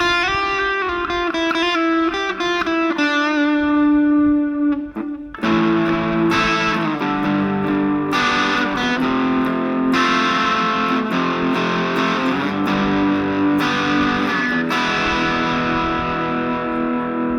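Epiphone Les Paul 100 electric guitar played through an Aroma TG-08 mini amplifier with an overdriven tone: sustained single notes at first, then, about five seconds in, strummed chords.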